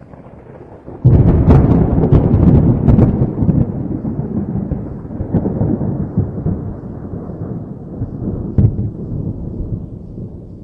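Thunder: a clap breaks in sharply about a second in and crackles for a couple of seconds, then rolls off into a long rumble that slowly fades, with one more sharp crack about two seconds before the end.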